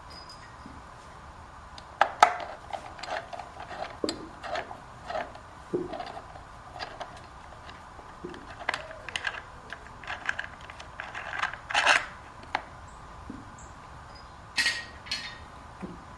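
Scattered metallic clicks, clinks and scrapes of hand tools and long screws being worked out as the stock air filter comes off a Harley-Davidson Sportster, with a few sharper clicks.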